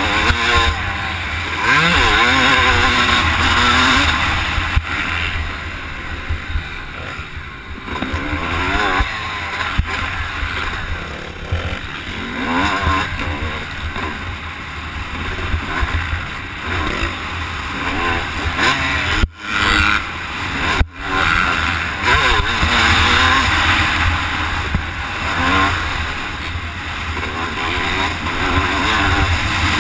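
Motocross bike engine revving up and down as it is ridden around a dirt track, the pitch rising and falling with each burst of throttle, over heavy wind noise. The sound drops out briefly twice about two-thirds of the way through.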